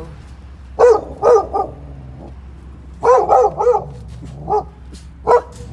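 Dogs in wire crates barking in short bursts of two to four barks each, about ten barks in all.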